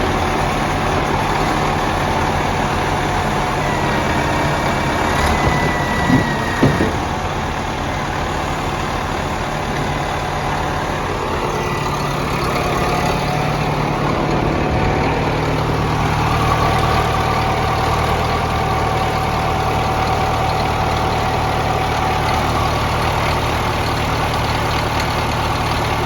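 Caterpillar 930 wheel loader's diesel engine running steadily. There are two sharp knocks about six seconds in, and the engine note gets fuller and lower a little past halfway.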